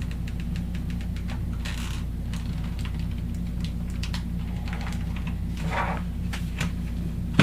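The plastic body of a cheap wireless keyboard with a built-in trackpad creaks and clicks as it is bent by hand in a flex test. There are scattered small clicks and a sharper click at the end, over a steady low hum.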